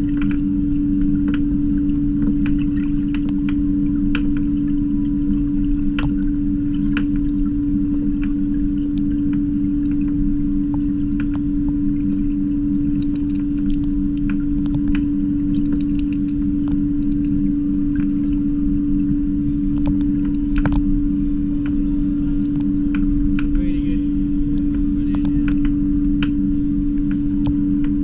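Swimming pool heard underwater: a steady low hum with one constant tone over a dull rumble, dotted with small irregular clicks and ticks from moving water.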